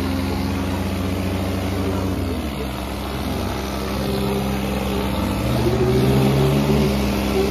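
Diesel engines of a Sonalika DI 35 and a Mahindra 475 DI tractor running hard under load, pulling against each other in a chained tug-of-war. The engine pitch sags about two and a half seconds in, then rises and gets louder from about five seconds in.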